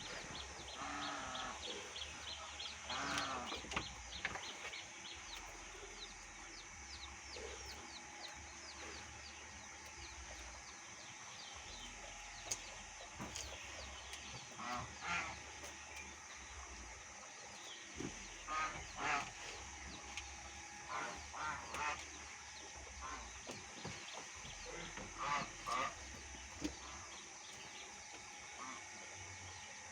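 Farm animals calling: short calls in small clusters, a few seconds apart, over a steady background hum.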